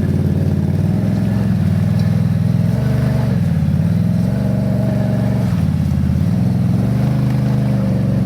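ATV (quad bike) engine running under load, its revs dipping and rising again several times as the throttle is worked.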